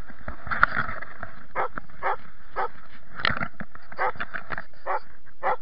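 A search-and-rescue dog barking repeatedly from below, a string of short barks about two a second. This is typical of a search dog's bark alert at a casualty it has found up a tree.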